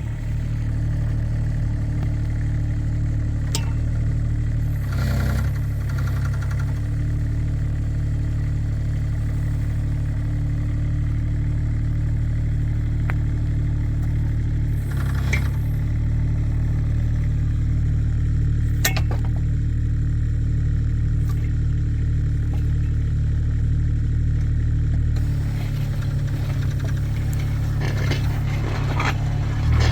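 Kubota mini excavator's diesel engine running steadily, with a few sharp clicks and two brief rattling bursts, about five and fifteen seconds in.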